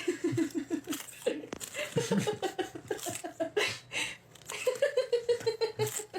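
A person laughing in three runs of quick repeated pulses, with short pauses between them.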